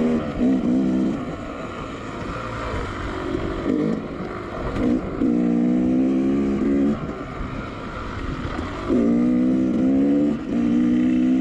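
Two-stroke dirt bike engine under the rider, revved in several throttle bursts that climb in pitch, hold for a second or two and drop back to a lower, rougher running between; the longest bursts come a little past the middle and near the end.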